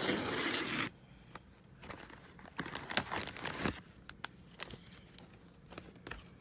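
A plastic courier envelope ripped open in one loud tear lasting under a second, followed by plastic and foil packaging crinkling and rustling as it is handled and a foil pouch is pulled out.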